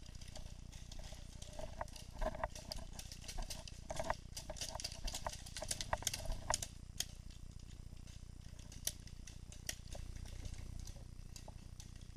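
Paintball markers firing in scattered pops and quick strings, busiest through the middle, over a steady low background rumble.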